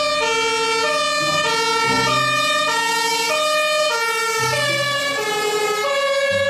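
German fire engine's two-tone siren (Martinshorn) sounding, a high and a low tone alternating about every half second. Its pitch drops slightly about two-thirds of the way through as the truck passes and drives away.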